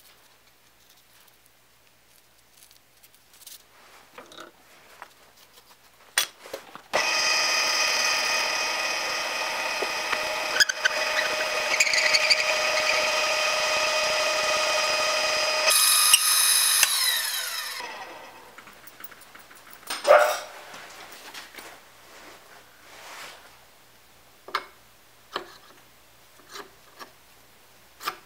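Drill press motor and spindle starting about a quarter of the way in, running steadily with a whine of several fixed tones while driving a homemade 15 mm reamer into a steel block, then shifting higher and winding down with falling pitch. Light metallic clicks and taps come before and after, with one louder knock just after it stops.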